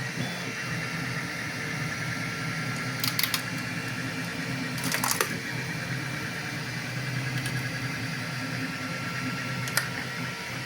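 3D printer running: a steady motor whine with several held tones over a low hum, and a few short sharp clicks partway through.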